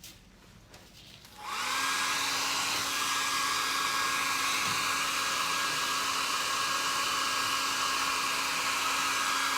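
Hair dryer switched on about a second and a half in, then blowing steadily with a constant whine.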